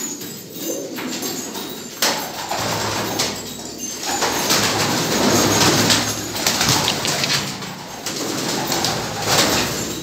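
Domestic pigeons cooing in a small loft, with wing flaps and scuffling, and a sharp knock about two seconds in.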